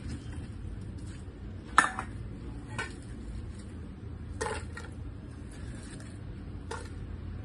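A stainless steel pot and a ceramic plate being handled and set down: four sharp clinks and knocks, the loudest about two seconds in, over a low steady hum.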